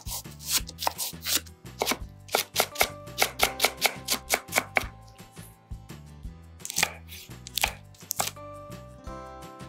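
Chef's knife chopping a large green onion and then slicing green chili peppers on a wooden cutting board: sharp knocks of the blade on the board. There is a fast run of about four strokes a second in the middle, then a few slower, separate cuts near the end.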